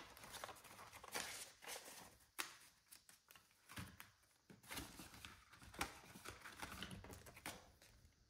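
Faint rustling and crinkling of paper banknotes being handled and sorted by hand, with scattered light taps and clicks.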